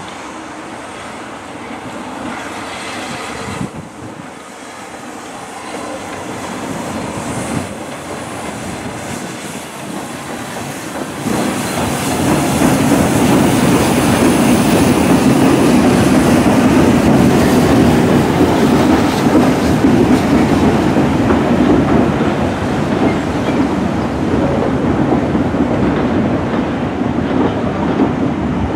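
A train approaching and then rolling past close by: it grows gradually louder over the first ten seconds or so, and from about twelve seconds in it runs past loud and steady.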